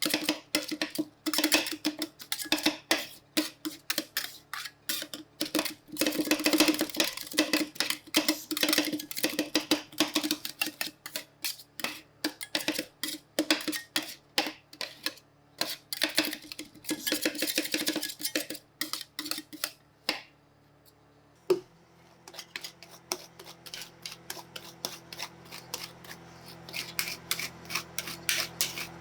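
Metal spatulas chopping rapidly on the cold steel plate of a rolled-ice-cream machine, working macaroni snacks into the ice cream base in a fast clatter. About 21 seconds in there is a brief lull, and then the tapping resumes over a low steady hum.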